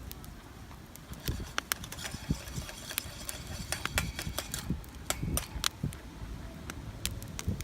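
Small wood fire crackling, with irregular sharp pops and snaps throughout.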